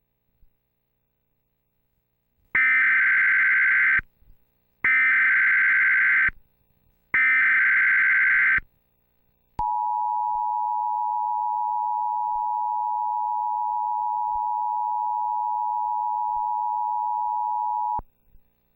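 Emergency Alert System signal. Three bursts of SAME header data tones, each about a second and a half long, are followed by the steady two-tone EAS attention signal, which holds for about eight seconds and then cuts off. Together they mark the start of an emergency alert broadcast.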